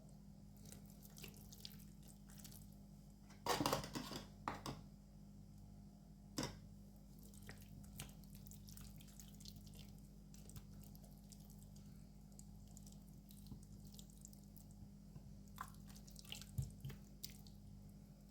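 Soft wet squishing and small clicks as ginger-garlic paste is spread by hand over a raw leg of lamb in a tray, with a louder cluster of squelching about three and a half seconds in. A steady low hum runs underneath.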